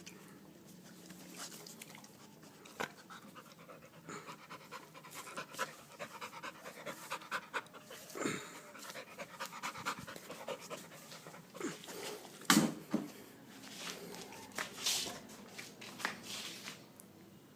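Pit bull dog panting in quick, soft breaths, with a few sharper, louder sounds; the loudest comes about twelve seconds in.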